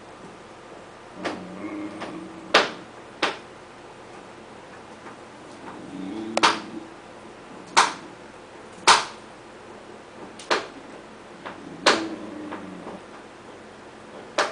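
Border collie puppy making low grumbling growls in three short bouts, a rumbling sound likened to a motorcycle, with about eight sharp clicks in between.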